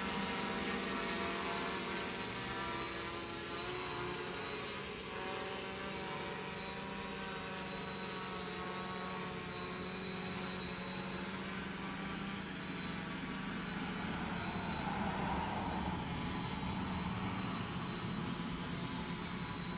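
Quadcopter's four Turnigy electric motors and propellers whirring as it hovers and descends to land, the pitch drifting as the motors adjust their speed. It gets a little louder about two-thirds of the way in.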